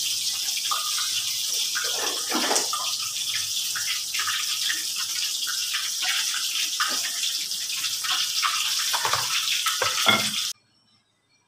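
A steady hiss like running water from a tap, with faint knocks and handling noises from kitchen work beneath it; it cuts off abruptly about ten and a half seconds in.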